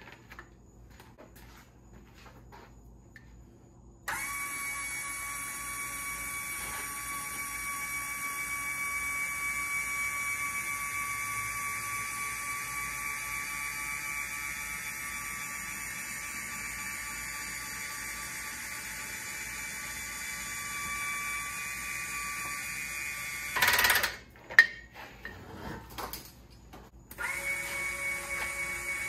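Electric motor driving a homemade paramotor lift, running with a steady whine for about twenty seconds, then stopping with a few sharp clunks. After a short pause it starts again near the end with a slightly different tone.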